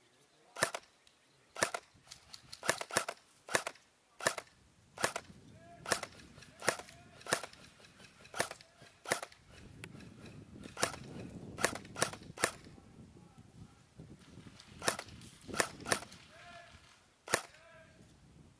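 Airsoft guns firing single semi-automatic shots: about twenty sharp cracks spread irregularly, sometimes two or three close together. A low rustling runs under the shots in the middle.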